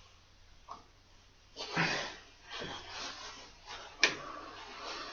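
Handling noises at close range: a rustling scrape about a second and a half in, a softer shuffle after it, and one sharp click near the end.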